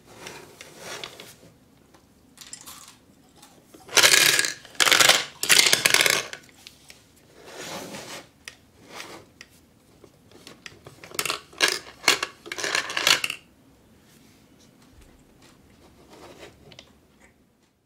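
Small hard candy balls clattering and clicking against the plastic of a toy garapon-style gumball dispenser, in bursts. The loudest rattling is about four to six seconds in and again around eleven to thirteen seconds.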